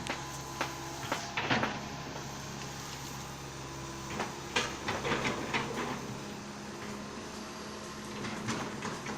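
Komatsu excavator engine running steadily, with clusters of sharp cracks and knocks about a second and a half in, again from about four and a half to six seconds, and near the end.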